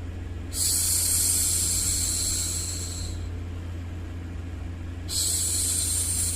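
A woman's voice making long soothing 'shhh' hushing sounds for a baby: two drawn-out shushes, each about two and a half seconds, one starting about half a second in and the second about five seconds in, over a steady low background hum.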